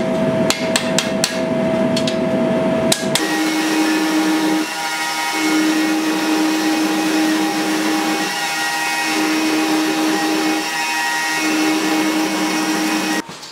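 Hand hammer striking a red-hot sword blade on an anvil, quick ringing blows about three a second. About three seconds in this gives way to a belt grinder grinding the steel blade, a steady grinding hiss over a hum that breaks off and returns a few times.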